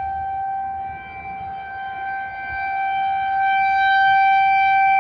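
Federal Signal 2001-SRN outdoor warning siren sounding a steady single tone. Its loudness swells to a peak about four seconds in and then eases as the rotating siren head turns.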